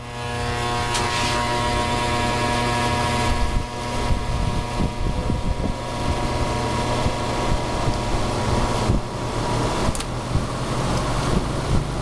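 Vintage ILG box fan running on high: the electric motor buzzes and hums as the blade slowly comes up to speed, over a steady rush of air. The buzzing eases after about five seconds.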